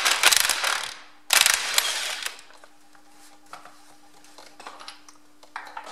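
Cordless impact wrench hammering a bolt loose on a tractor's front axle support, in two bursts of about a second each, the second starting about a second and a half in. Afterwards only faint clicks of the parts being handled over a low steady hum.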